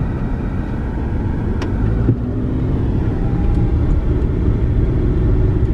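Toyota RAV4 driving along a paved road, heard from inside the cabin: steady low engine and road noise.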